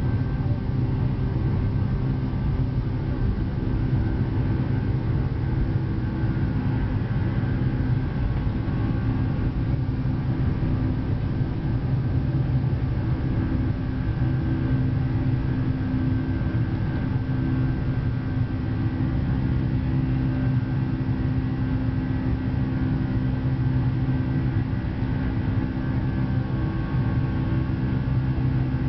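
Cabin noise of a Boeing 747-400 taking off: its four turbofan engines at high power give a steady low rumble with a few constant whining tones over an even rush of air.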